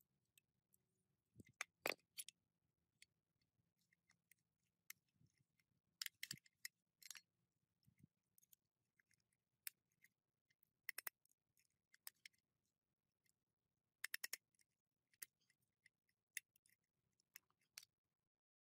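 Metal hand tools and engine parts clicking and clinking against the crankcase of a small two-stroke minibike engine during disassembly: scattered sharp clicks and taps, with a quick run of four or five clicks about fourteen seconds in.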